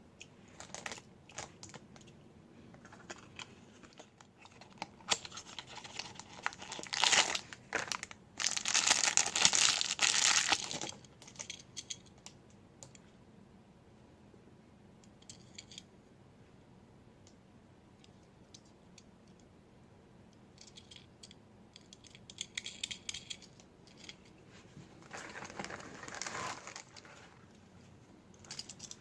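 Toy packaging being crinkled and torn open by hand, in irregular bouts. The loudest handling comes about a third of the way in, with quieter rustling later.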